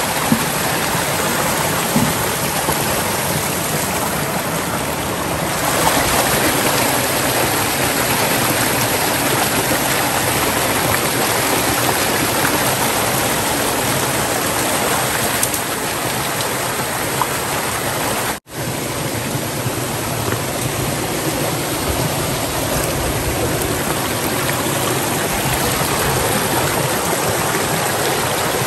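Small rocky forest stream pouring over boulders in little cascades: steady, close rushing and splashing of water. The sound cuts out for an instant about two-thirds of the way through.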